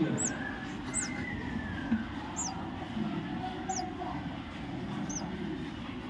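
Common myna nestlings begging: thin, high chirps, each falling in pitch, repeated about once a second.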